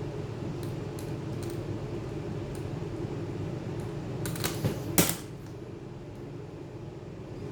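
A few faint small clicks, then a quick cluster of sharper clicks and a rattle about four to five seconds in, over a steady low hum.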